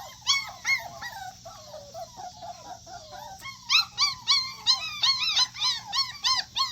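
A litter of puppies whining and yelping, many short high cries overlapping. The cries grow louder and come thick and fast, several a second, from about halfway through.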